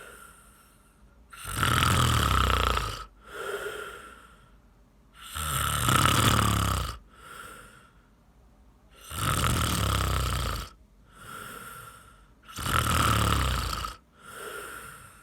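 Loud snoring in a steady rhythm of about one breath every four seconds. Each breath is a long, deep, rattling snore, followed by a shorter, softer breath out.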